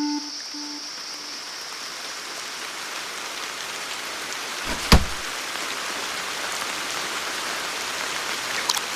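Steady rain hiss that grows slightly louder over time, with one sharp thump about five seconds in. The last notes of the music fade out at the start.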